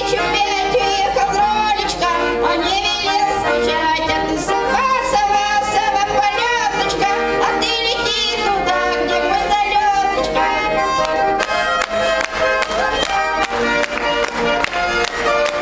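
A woman sings Russian chastushki in a strong, wavering voice to the accompaniment of a garmon (Russian button accordion). From about ten seconds in the singing stops and the garmon plays on alone in even, rhythmic chords.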